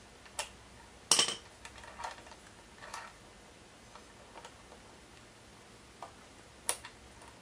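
A handful of light, separate metallic clicks and taps as the access plug is worked out of a Nissan KA24E's aluminium timing cover, the sharpest about a second in.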